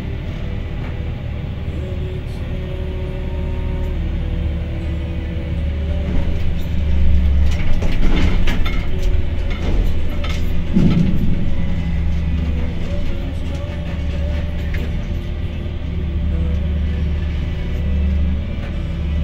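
Crane machinery running with a steady low drone, heard from inside the crane's glass cab while it lowers a load into a ship's hold. It grows louder for a few seconds in the middle, with a couple of knocks.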